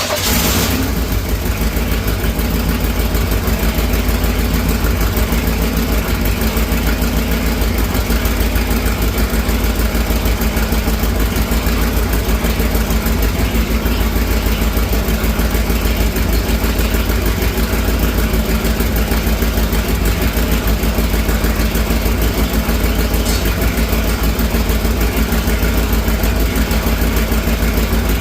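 Chevrolet 350 small-block V8 in a 1983 Camaro, just started and running at a steady, evenly pulsing idle with the exhaust open and no muffler. It runs smoothly with no vacuum-leak hiss, now that the plug wires have been put back in the right firing order and the vacuum leak is repaired.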